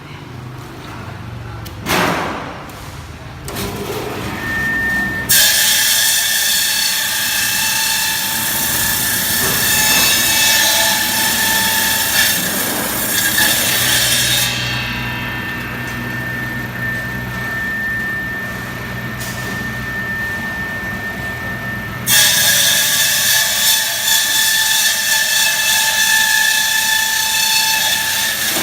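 Electric ice-cutting machine running, its blades cutting through ice: a steady motor hum and whine under a loud, gritty hiss that starts suddenly about five seconds in, eases off for several seconds midway, and comes back loud near the end.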